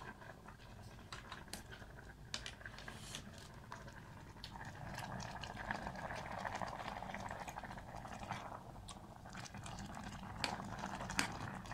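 Soup bubbling in a small steel cooking pot while a metal spoon stirs it, with scattered light clinks of the spoon against the pot. The bubbling grows louder about halfway through.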